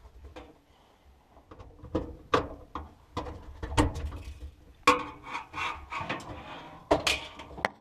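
Irregular knocks, clicks and scraping of hard plastic as the screwed-together plastic housing around a clothes dryer's lint-filter slot is unscrewed and worked loose.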